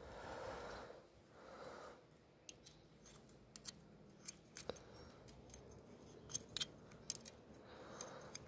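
Faint, irregular light clicks and ticks, several a second from about two and a half seconds in, from a fishing rod and reel being handled during a retrieve.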